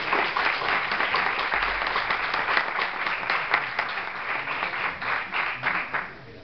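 Audience applauding, a dense patter of many hands clapping that thins out and stops about six seconds in.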